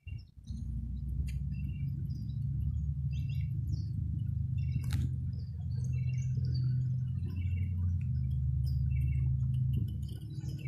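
Small birds chirping in short repeated calls over a loud, steady low rumble.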